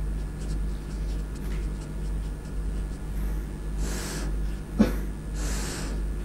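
Steady low mains hum under quiet room tone, with two short breaths at the microphone about four and five and a half seconds in, and a single sharp click just before the second.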